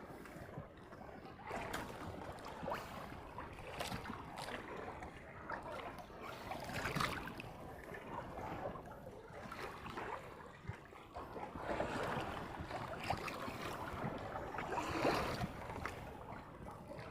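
Sea water slapping and sloshing against the hull of a small fishing boat, in irregular swells with small knocks.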